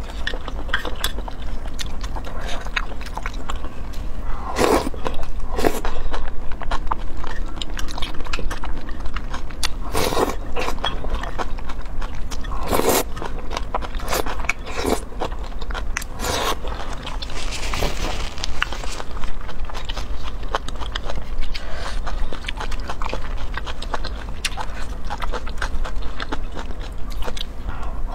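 Close-miked eating of saucy rice noodles: wet chewing and smacking clicks, with several louder slurps.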